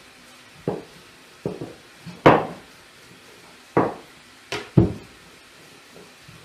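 Wooden rolling pin knocking and clacking against a round wooden pastry board as dough is rolled out thin: about six sharp, irregular knocks, the loudest about two seconds in.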